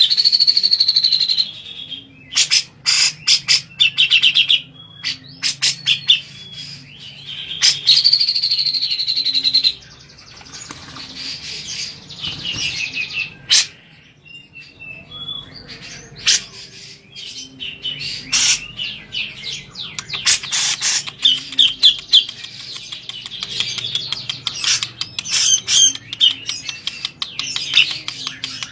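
Grey-cheeked bulbul (cucak jenggot) calling excitedly as it bathes, with rapid harsh chattering notes throughout. Two long trilled calls, one at the start and one about eight seconds in, are the loudest sounds, and water splashes in the tray among them.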